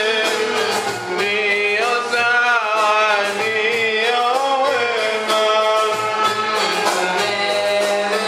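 A Swahili qaswida, an Islamic devotional song, sung as a melodic line with instrumental accompaniment and a low, steady pulse.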